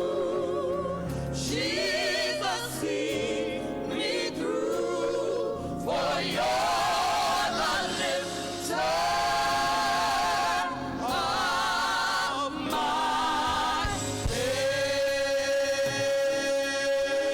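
Gospel choir singing in phrases with vibrato on the held notes, settling about 14 seconds in onto one long held chord.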